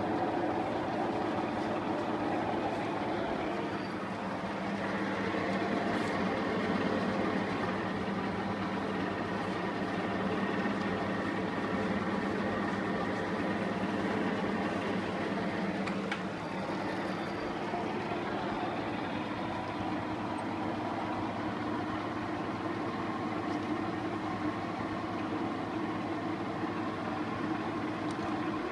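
Metal lathe running steadily: a continuous mechanical hum with several steady tones over a rattling noise.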